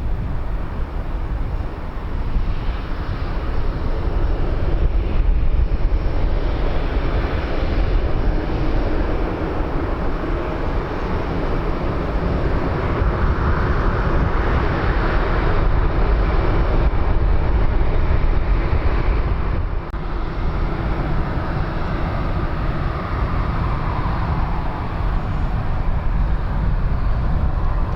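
Aircraft engines running, swelling to a peak about halfway through and then easing, over a steady low rumble of wind on the microphone.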